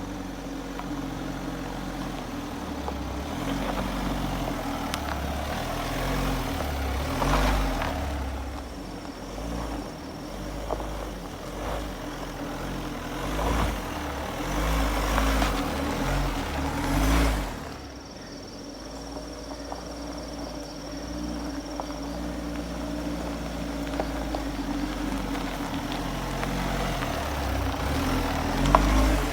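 Mitsubishi Delica D:5 van driving, a steady engine and road drone with low thumps and swells every few seconds.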